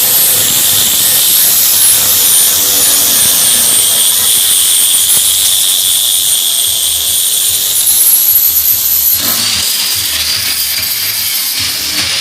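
Electric sander running on pallet wood, a loud steady hiss with a high motor whine that wavers as pressure on the wood changes; the sound shifts about nine seconds in.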